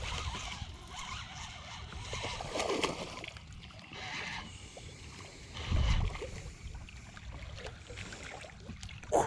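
A hooked bass splashing in the water as it is reeled in to the side of the boat, with a low heavy thump about six seconds in and a short sharp splash near the end.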